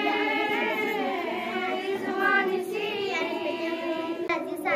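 A group of young girls singing a naat, an Urdu devotional hymn praising the Prophet, into a microphone in long, slowly wavering held notes.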